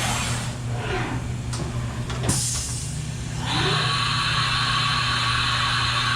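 CNC machine working through a tool change over a steady low machine hum: a click and a short hiss of air a little past two seconds in, then a motor winds up, runs with a steady whine for about four seconds and winds down near the end.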